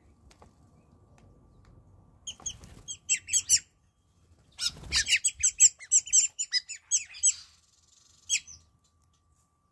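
Wattled starlings calling: two bursts of rapid, squeaky high chirps, one starting about two seconds in and a longer, louder one about five seconds in, then a single call near the end.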